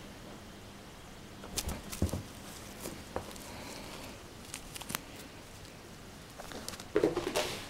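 Scattered soft knocks, scrapes and rustles of a kitten batting and grabbing at a toy, with the loudest cluster near the end.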